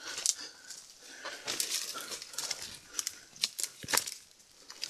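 Branches, twigs and dry leaves rustling and crackling as a person pushes through dense brush on foot, with a few sharp twig snaps, the loudest about four seconds in.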